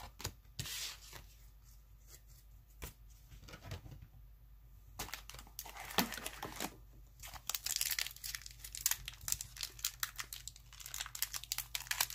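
Trading card pack wrapper crinkling and cards being handled: scattered crackles at first, growing dense and near-continuous from about halfway.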